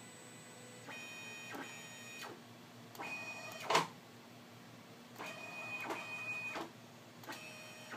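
Stepper motors of a TrinityLabs Aluminati 3D printer/CNC mill driving its lead screws. They whine in four separate moves of one to two seconds each as the gantry travels. A single sharp click comes about four seconds in.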